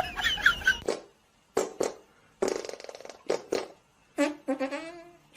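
Short blasts on a brass instrument, several separate notes with gaps between them, then a longer wavering note near the end.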